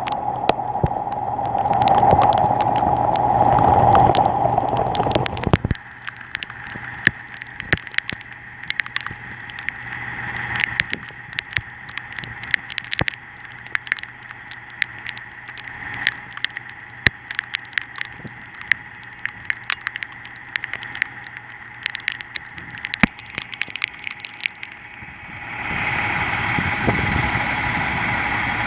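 A Freightliner dump truck's Cummins N14 diesel engine running, with a loud steady whine over it that cuts off about five and a half seconds in. After that the engine runs on more quietly under many sharp irregular ticks of rain striking the camera, and the sound swells again near the end.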